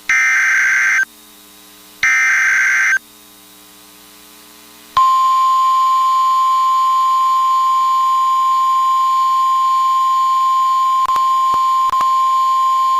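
NOAA Weather Radio alert signals: two one-second bursts of SAME digital header data a second apart, then, about five seconds in, the steady 1050 Hz warning alarm tone, which signals that a warning message follows.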